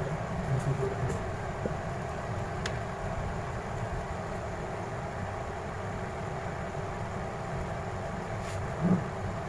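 Steady low background rumble, with a few faint light clicks and a brief louder knock near the end.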